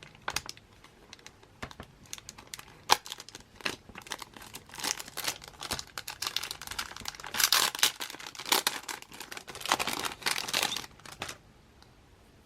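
Packaging of an acrylic standee being unwrapped by hand: irregular crinkling, tearing and small clicks. The noise is busiest in the second half and stops about a second before the end.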